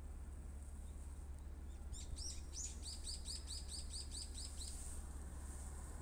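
A small songbird singing a quick run of about a dozen repeated high chirps, four or five a second, starting about two seconds in and stopping near five seconds.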